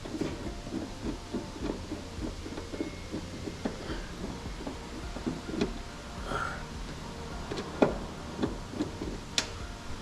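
Light irregular knocks and clicks of hands and tools working on an electrical panel, as the covers come off, with a couple of sharper clicks near the end. A steady low hum runs underneath.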